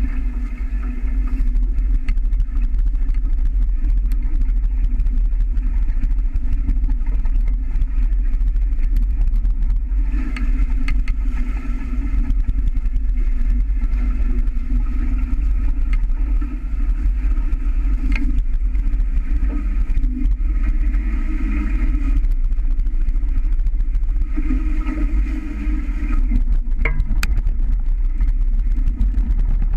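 Wind buffeting the microphone of a camera fixed on a sailing catamaran, with water rushing along the hulls: a steady, loud rumble. A higher hum rises and fades several times.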